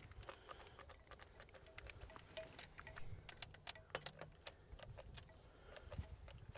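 Scattered light clicks and clinks of jumper cables and their metal clamps being handled and pulled through an engine bay.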